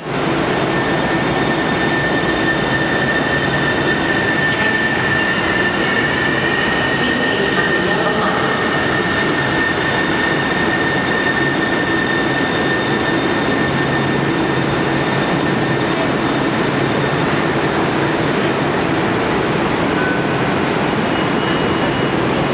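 Kinkisharyo light rail vehicle running through the station with a steady rumble and hum, and a high-pitched wheel squeal that lasts through the first half and then fades.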